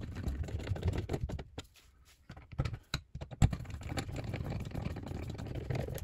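Screwdriver driving the screws of a dishwasher's plastic filter, a run of small rapid clicks and ticks from the driver and screw, with a short pause and a sharper knock about three and a half seconds in before the clicking resumes.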